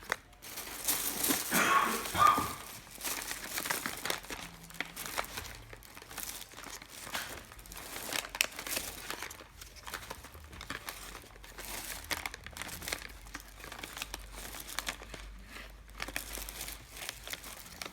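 Plastic packaging crinkling and crackling as a small PVC model train is worked out of it, loudest about two seconds in.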